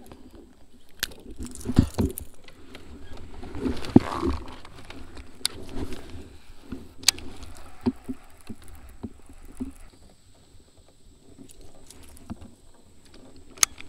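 Scattered knocks, thumps and sharp clicks of fishing gear being handled in a plastic fishing kayak, with the strongest thumps about two and four seconds in and a sharp click just before the end.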